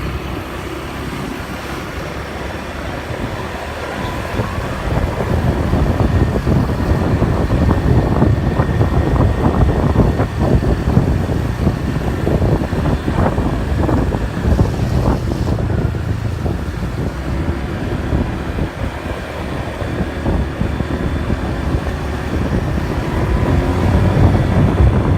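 Gusty wind buffeting the microphone, a low fluttering rumble that grows louder about four to six seconds in.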